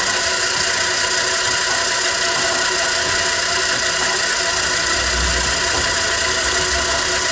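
Heavy-duty LiftMaster jackshaft garage door opener running steadily as it drives the door, its motor and drive giving an even whine with several steady tones. A low rumble joins in from about five seconds in.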